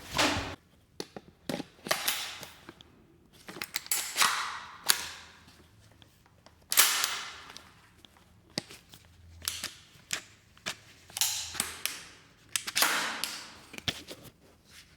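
Footsteps and shoe scuffs picked up very close by a small wireless mic clipped onto the shoe. The sound is an irregular run of sharp clicks and knocks mixed with short scraping swishes, each under a second long.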